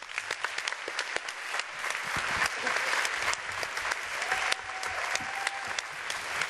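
Audience applauding, a dense, steady patter of many hands clapping that starts abruptly.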